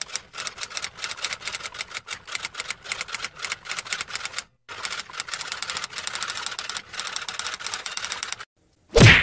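Typewriter sound effect: rapid, regular key clacking at several strokes a second. It stops dead briefly about halfway through and again near the end, and a short whoosh follows just before the end.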